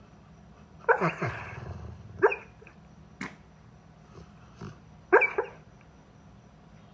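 A Labrador retriever barking in its sleep while dreaming: three short pitched barks about one, two and five seconds in, with a few fainter sounds between them.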